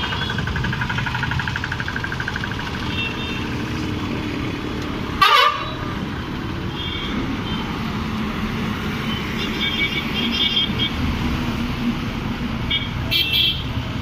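Bus engines running at a busy bus stand, with several short horn toots from the buses. A brief, loud burst of sound comes about five seconds in.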